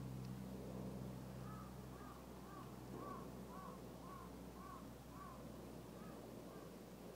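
A crow cawing faintly, a quick series of about ten short calls roughly half a second apart, over a steady low hum.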